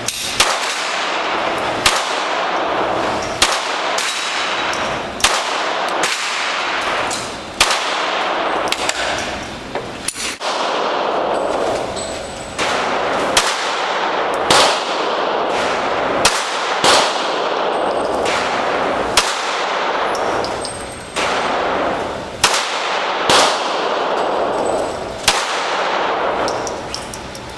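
Springfield 1911A1 pistol with a .22 LR conversion slide, fired shot by shot in a long string of about twenty single shots, spaced roughly one to two seconds apart. Each shot rings out and dies away before the next.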